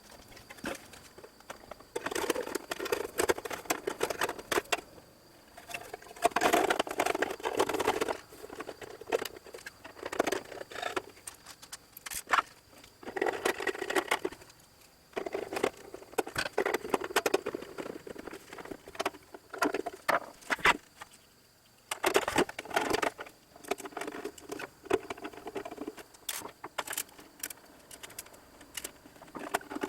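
Hands reassembling a LeCroy DDA-125 oscilloscope: bursts of clattering and clicking handling noise a few seconds long, with quieter gaps between.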